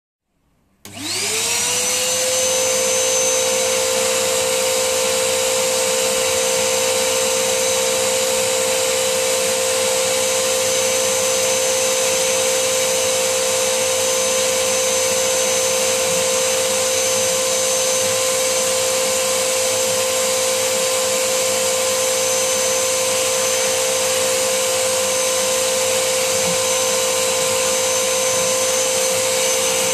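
Vacuum cleaner switched on about a second in, its motor whine rising as it spins up, then running steadily while a brush nozzle sucks dust from the vent slots of a PS3 Super Slim.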